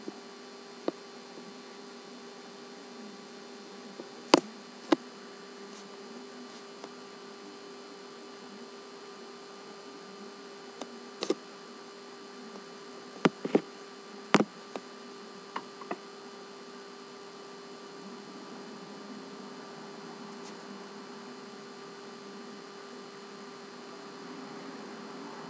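Steady electrical hum with a faint high whine and hiss, with scattered short sharp clicks, most of them in the first half.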